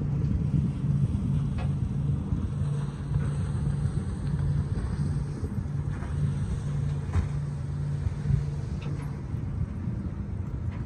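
Fishing boat's engine running with a steady low hum, along with a few faint ticks.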